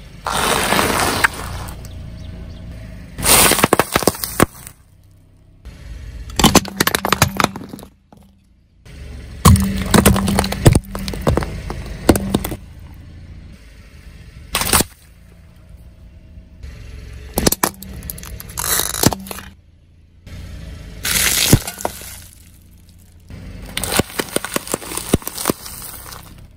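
A car tyre rolling over and crushing one object after another, including a plastic basket and a row of plastic snack cups. Sharp cracking and crunching comes in bursts every few seconds, with the car's low rolling noise quieter in between.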